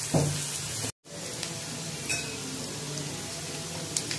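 Mixed vegetables sizzling steadily in oil in a black wok-style kadai while a flat spatula stirs them, with a few short clicks of the spatula against the pan. The sound cuts out completely for a moment about a second in.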